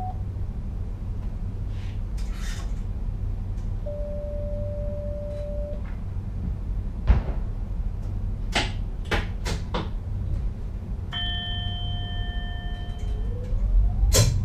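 Cab interior of an NS Sprinter Lighttrain electric train: a steady low rumble with a short beep, a few sharp clicks and a multi-tone chime. Near the end a whine starts rising in pitch, typical of the train's electric traction drive as it picks up speed.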